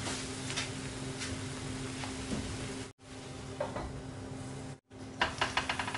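Bánh xèo batter sizzling steadily in a frying pan, with a steady low hum under it and scattered pops. The sound cuts out briefly twice, and a quick run of clicks comes near the end.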